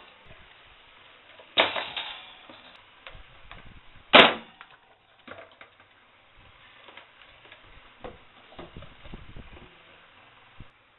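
Knocks and clatters from a plastic desk fan being handled and set in place: two sharp hard knocks, the louder about four seconds in, with softer rattles, scrapes and thuds between.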